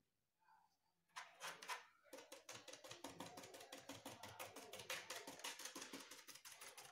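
Paintbrush dabbing paint onto a polystyrene foam sheet: faint, rapid tapping that starts about a second in and goes on quickly and evenly.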